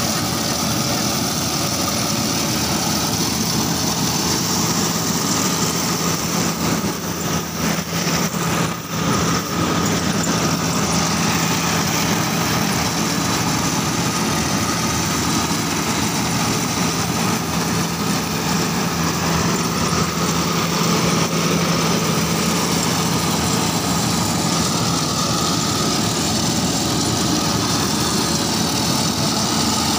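Yanmar rice combine harvester running steadily while it cuts and threshes a rice crop, its engine and threshing machinery making a continuous mechanical drone with a low hum. The level dips briefly about eight seconds in.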